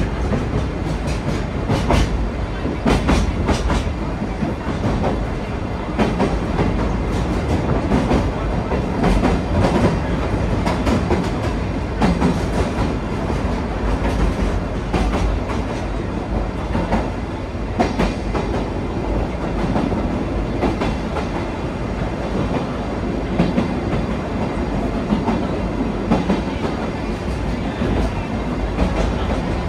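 Sagano Romantic Train running along the track, heard from its open-air car: a steady rumble of wheels on rail, with repeated clickety-clack as the wheels cross the rail joints.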